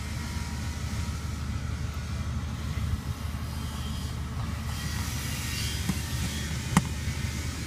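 A steady low rumble, with one sharp click near the end.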